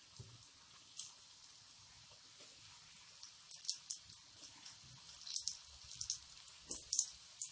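Hot oil sizzling steadily around boiled baby potatoes deep-frying in a metal pan. Sharp spattering crackles as more potatoes are dropped in one at a time, several in a cluster in the second half.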